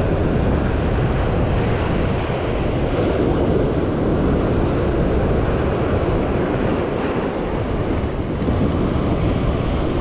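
Sea surf breaking and washing over a shore of boulders, a steady rush with wind buffeting the microphone.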